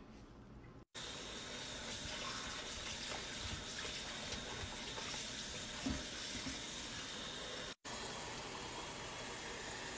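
Water running from a tap into a bowl of raw chicken pieces in a steel sink: a steady splashing hiss that cuts out twice for an instant.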